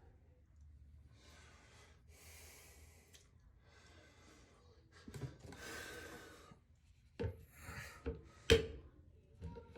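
Hand work in a shower floor drain: soft scraping and rubbing strokes, then a few sharp knocks, the loudest about eight and a half seconds in.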